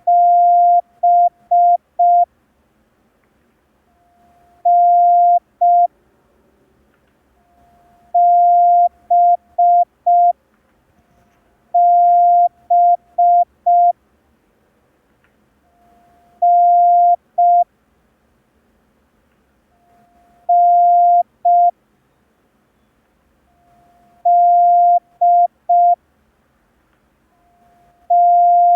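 Morse code practice tone, a steady beep near 700 Hz keyed into single letters about every four seconds. Each letter is one dash followed by one to three dots: the letters N, D and B.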